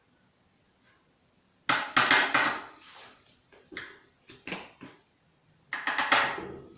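A spoon clinking and knocking against a mug in quick clusters of taps, starting about a second and a half in, with a few single knocks in between, as cake batter ingredients go into the cup.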